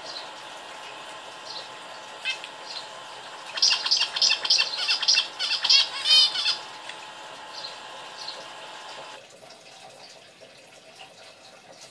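Zebra finch calling: a single call about two seconds in, then a quick run of about eight loud calls lasting some three seconds, with fainter calls before and after. A steady background sound stops about nine seconds in.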